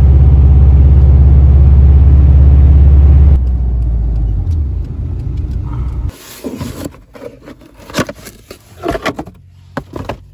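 Loud, low rumble of road and engine noise heard inside a moving car's cabin. It drops about three and a half seconds in and stops about six seconds in. Then come scattered clicks and rustles of a rubber-and-steel engine mount being handled in its cardboard box.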